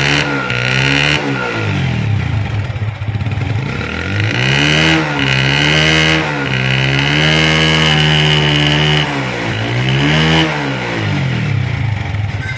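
TVS Victor 3-valve single-cylinder four-stroke motorcycle engine, heard close at the silencer outlet, revved up and down. It blips near the start, drops back to idle, is held at higher revs for several seconds in the middle, and blips once more near the end. The engine puts out smoke from the silencer and, once opened, proves to be burning oil past non-genuine valves.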